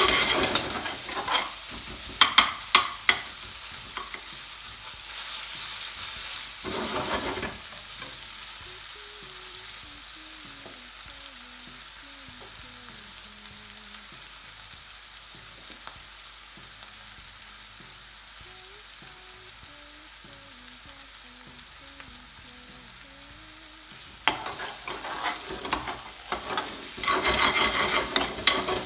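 Sliced onions frying in oil in a pan, a steady sizzle as they soften. There are bursts of stirring and scraping in the first few seconds, again around seven seconds in, and through the last several seconds.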